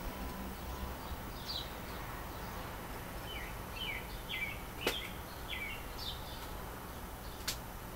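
Birds chirping in short, falling chirps that come a few at a time in loose groups, over a steady low hum. Two sharp clicks, about five and seven and a half seconds in, are the loudest sounds.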